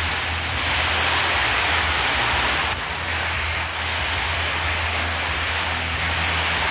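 Stage CO2 jets hissing in a loud, continuous rush of vapour, dipping briefly twice, over a steady low hum.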